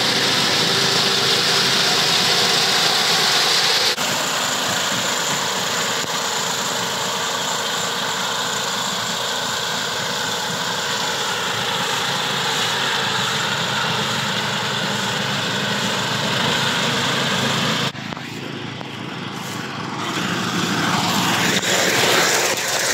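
Walk-behind rice reaper's small engine running steadily under load as it cuts standing rice. The sound changes abruptly about four seconds in and dips for a couple of seconds near the end.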